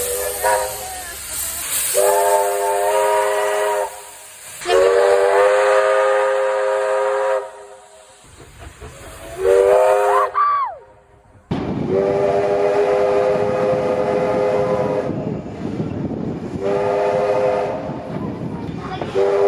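Locomotive whistle sounding a run of blasts, some short and some held for a few seconds, one ending in a slide of pitch, with steam hissing under the first ones.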